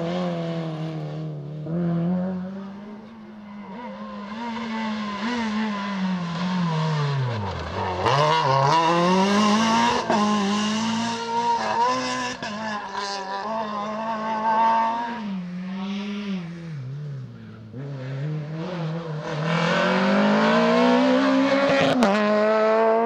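Rally cars driven hard on a tarmac stage, one after another, each engine revving up and dropping sharply at gear changes and braking into corners, then climbing again. A single sharp crack sounds near the end.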